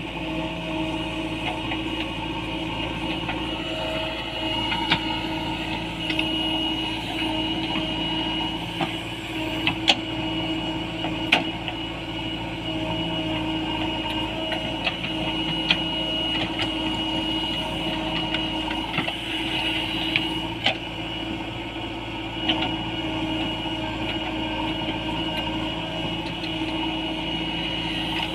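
JCB 3DX backhoe loader's diesel engine running steadily under working load, with a steady high whine over it. Short sharp knocks come every few seconds.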